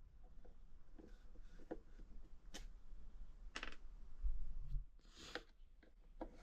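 Scattered light clicks and taps of plastic and metal parts being handled while a blender's motor housing is worked apart, with a dull bump about four seconds in.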